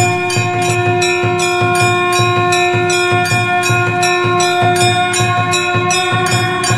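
Temple bells rung over and over, about three strikes a second, their ringing overlapping into a steady held chord, with a low beat in time with the strikes.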